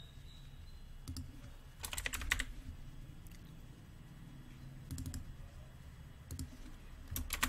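Typing on a computer keyboard: a quick run of keystrokes about two seconds in, then a few single taps, over a low steady hum.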